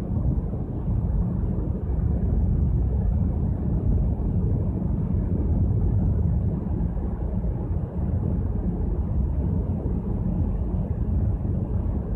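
Steady low rumble on the open top deck of a cruise ship under way: wind on the microphone mixed with the ship's own running noise.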